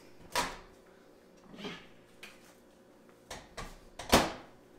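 Over-the-range microwave door being opened with a latch click and the heated food taken out, with a few softer knocks of handling and a louder knock about four seconds in.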